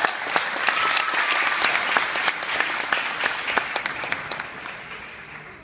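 Crowd applauding in a large gymnasium, the clapping dying away toward the end.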